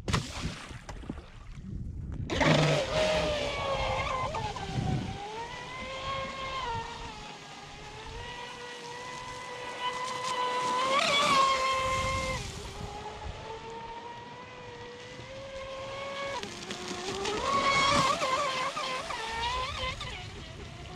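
Pro Boat Sonicwake 36 RC speedboat with a Lepard 4074 1800 kV brushless motor: a splash as it drops into the water, then, from about two seconds in, the motor and prop whining as it runs across the lake. The pitch rises and falls with the throttle, and the whine swells loudest twice, midway and near the end. It runs smoothly.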